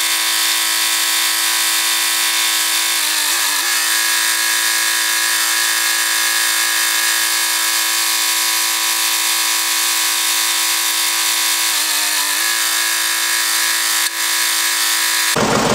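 Tractor-loader backhoe engine running steadily as a thin, buzzy drone with no bass. Its pitch wavers briefly about three seconds in and again about twelve seconds in, and a single click comes near the end.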